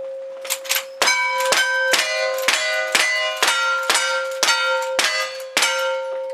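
Rapid gunfire, about two shots a second, in a cowboy action shooting stage. Each hit is followed by steel targets clanging and ringing, over a steady ring that carries on between shots.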